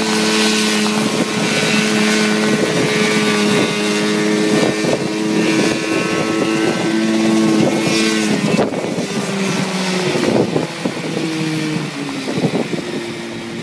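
Small piston engine of a homemade single-seat helicopter running hard with the main rotor turning. The engine note drops slightly about eight seconds in and sags again a couple of seconds later, with wind noise on the microphone.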